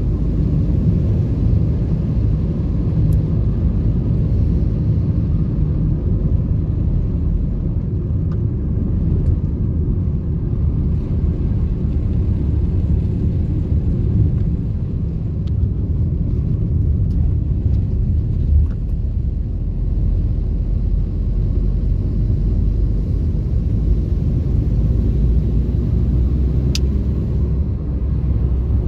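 A vehicle's steady low rumble, with a few faint clicks.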